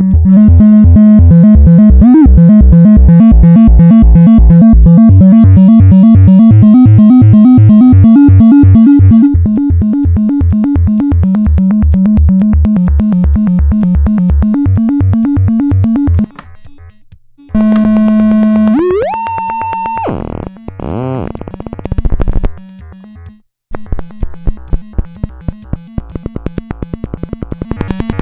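Make Noise 0-Coast synthesizer playing a fast, evenly repeating arpeggiated pattern, driven from an arpeggiator over MIDI. About sixteen seconds in the pattern stops; a held note glides upward, a falling pitch sweep follows, and the rapid repeated notes start again near the end.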